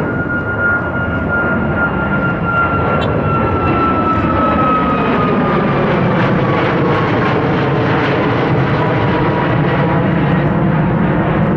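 Boeing 737 MAX 10's CFM LEAP-1B turbofan engines on departure: a loud, steady jet roar with a high whine that slowly falls in pitch.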